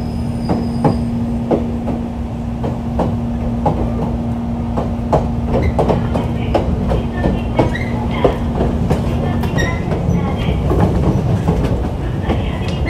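Jōmō Electric Railway car 723, a 1964-built former Keiō car, running on the line: wheels clicking over rail joints over a constant rumble. A steady hum stops about ten seconds in.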